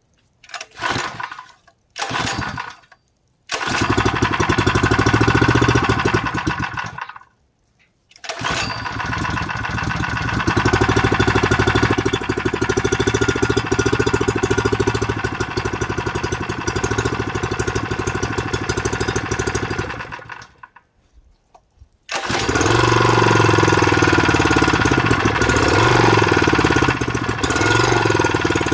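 Small engine being started cold: two brief attempts that barely fire, then it catches and runs. It dies about seven seconds in and is restarted, runs for about twelve seconds, dies again, and is started once more, running steadily as it warms up.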